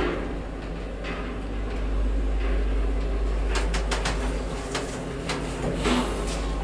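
1977 ZREMB traction elevator car travelling between floors with a steady low hum, a run of clicks about four seconds in, and a clack just before six seconds as it arrives and its doors begin to slide open.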